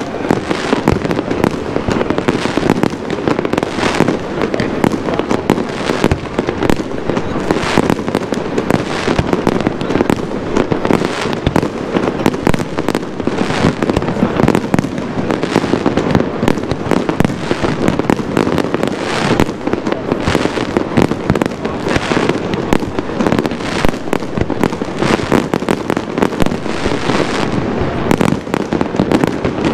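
Aerial display fireworks going off in a dense, continuous barrage: many loud bangs in quick succession with no pause.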